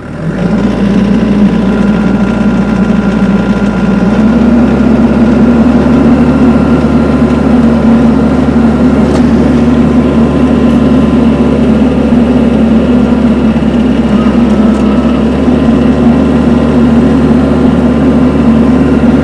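Tractor engine throttled up sharply and held at high revs under heavy load, a little harder from about four seconds in, then backed off at the end. The tractor is straining to drag a log uphill in four-wheel drive with no traction, the log still held by about an inch of uncut wood.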